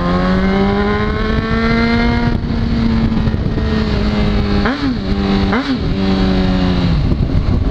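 Honda CBR sport bike engine pulling up through the revs, then holding a steady cruise with two quick throttle blips about halfway through, each a sharp rise and fall in pitch, before the revs ease off near the end. Wind noise runs underneath.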